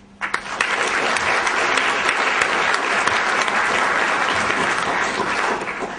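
Audience applause that starts almost at once, holds steady, and dies away near the end.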